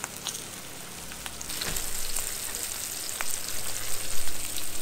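Breaded fish pieces frying in hot oil in a skillet: a steady sizzle that grows louder about a second and a half in, with a few sharp ticks.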